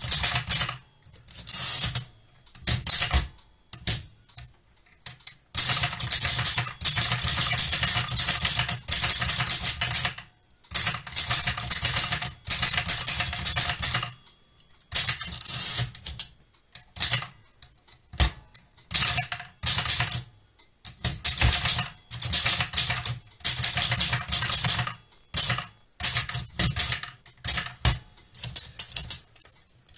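Erika Model 4 folding typewriter being typed on: runs of rapid keystrokes, the typebars striking a hard platen, broken by short pauses between bursts.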